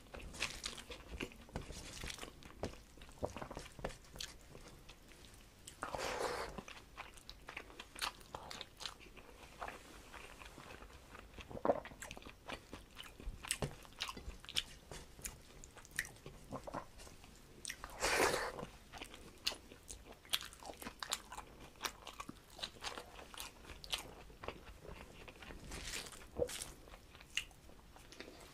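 Close-up eating sounds: a man chewing mouthfuls of rice and curry eaten by hand from a steel plate, with many small crunches and wet mouth clicks. Twice, about 6 and 18 seconds in, there is a longer, louder noise.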